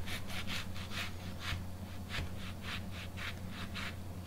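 Kitchen knife sawing back and forth through a whole onion in a horizontal cut: quick rasping strokes, about four a second, with a pause of about a second after the first second.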